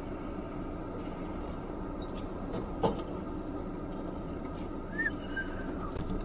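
Steady low rumble of a car's engine and road noise heard from inside the cabin through a dashcam, with a single sharp knock about three seconds in and a brief faint squeak near five seconds.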